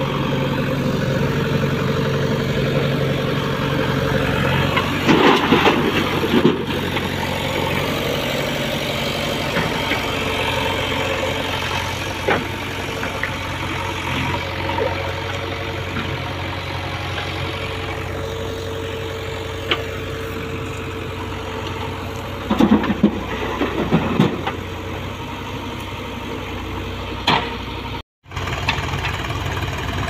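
Diesel engines of a JCB 3DX backhoe loader and a Swaraj tractor running steadily as the backhoe loads soil into a tractor trolley. Bursts of clattering come about 5 seconds in and again around 23 seconds in, with a sharp knock shortly before the end.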